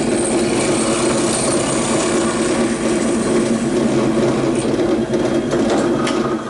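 Electric drill running steadily with an 11/64-inch bit, enlarging a hole in a truck battery tray; the motor stops near the end.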